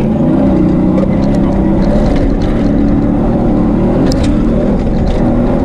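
Inside the cab of a Toyota Tacoma rally truck at speed on a dirt desert track: the engine running hard with its pitch wavering up and down over a heavy, steady rumble, with a few sharp ticks.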